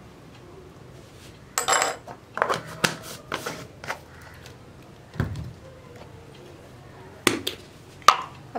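Kitchen utensils clinking: a metal spoon tapping and set down in a small ceramic bowl, and containers put down, in a run of sharp clinks starting about a second and a half in. A dull knock comes about five seconds in and two sharp clicks near the end.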